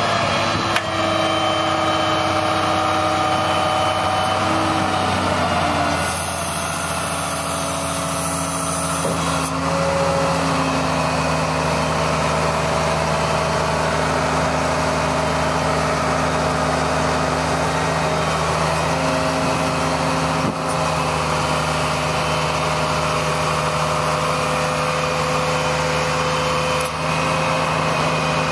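1997 GMC C7500 digger derrick truck's engine running steadily while powering its hydraulic auger. Its hum steps in pitch a few times.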